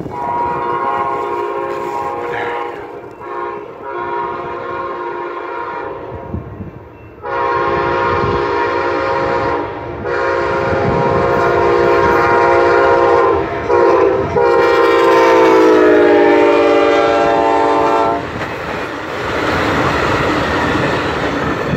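Amtrak passenger train's air horn sounding a chord, first at a distance, then louder in a long, long, short, long sequence, the pattern of a grade-crossing signal. The pitch of the last long blast drops as the locomotive passes. The horn then stops, and the passenger cars roll by with a steady rushing, rumbling noise.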